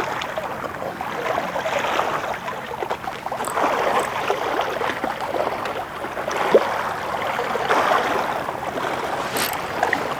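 Sea water washing and splashing along the shore, a steady rushing noise that swells and eases, with a few faint clicks.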